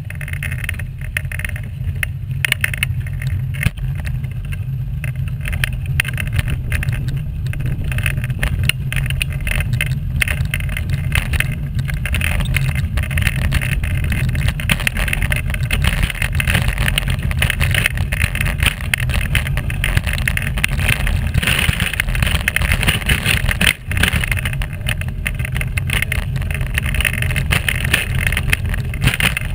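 Steady low rumble and rattle of wheels rolling along a path.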